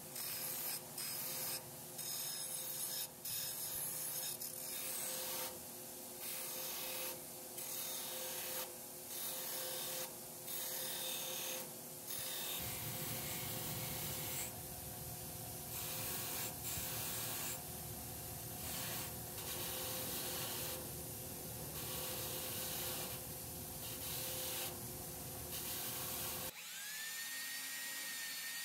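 Hand abrasive rubbing strokes, back and forth with short breaks about every second, over a steady hum. About two seconds before the end the rubbing stops and a power tool's motor starts with a rising whine.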